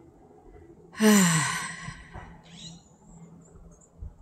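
A person's breathy sigh, its pitch falling, about a second in, followed by a softer breath.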